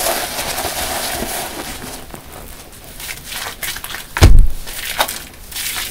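Large soft car-wash sponges being squeezed in thick dish-soap foam: wet squelching and crackling of bursting suds, loudest in the first two seconds, with scattered small clicks. A loud low thump comes a little past four seconds in.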